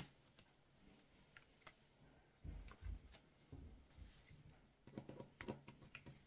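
Faint taps and clicks of a hand touching and sliding tarot cards laid out on a table, with a few dull low knocks between two and three seconds in.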